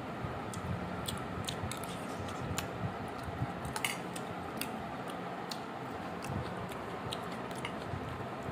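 Steel spoon clicking and scraping against a stainless steel bowl while mixing rice and shredded boiled chicken: irregular light clicks over a steady low hum.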